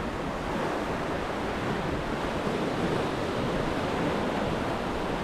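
Sea surf breaking and washing over the rocks below, a steady rush of water.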